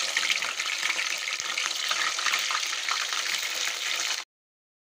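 Fish steaks frying in hot oil in a kadai: a dense, steady sizzle with crackling spatter, cutting off abruptly about four seconds in.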